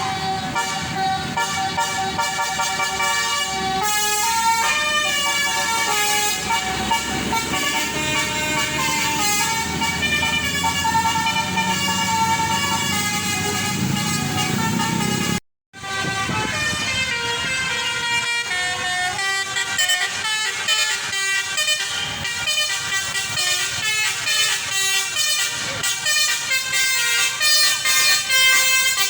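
Bus-mounted Basuri telolet horns playing fast, loud multi-note melodies over the low noise of a passing bus. About halfway through the sound cuts out for a moment, then another horn melody begins with quicker, choppier notes.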